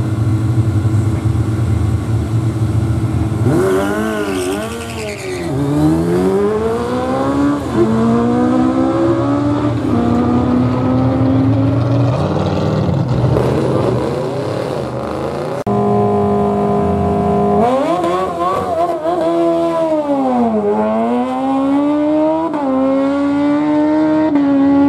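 Sport motorcycles drag racing: engines held high on the start line, then a hard launch with the engine note climbing and dropping back at each upshift. A second run launches and accelerates the same way in the second half.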